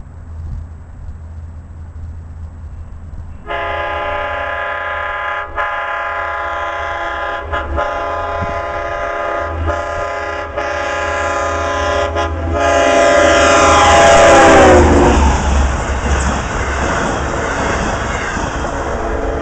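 LIRR DE30AC diesel locomotive blowing its chime air horn in a run of long blasts with short breaks, starting a few seconds in over the rumble of the approaching engine. The horn is loudest as the locomotive passes, where the chord drops in pitch, and then gives way to the steady rumble of the train rolling by.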